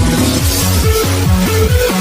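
Electronic dance music with a bass line of short notes that drop in pitch, repeating several times a second over a steady beat.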